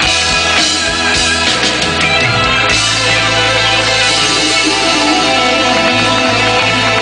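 Live rock band playing an instrumental passage through a PA, with guitar, bass and keyboards over drums. The bass line shifts to a new note a little over two seconds in.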